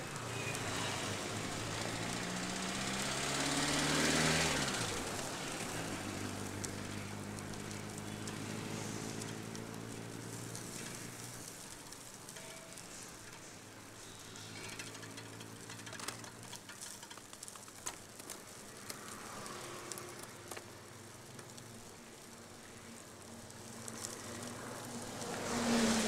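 Motor vehicles passing a bicycle on a wet road: an engine's hum rises to a peak about four seconds in and falls away, another engine hums steadily for several seconds after, and a second vehicle swells past near the end. A steady hiss of wet tyres and rain lies underneath, with a few scattered ticks in the middle.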